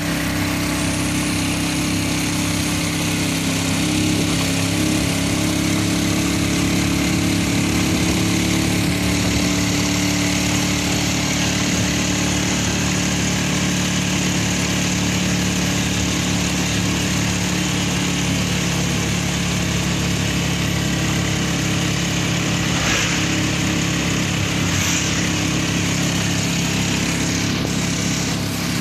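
Motorcycle engine of a tricycle (motorcycle with sidecar) running steadily while riding along the road, with wind and road noise over it.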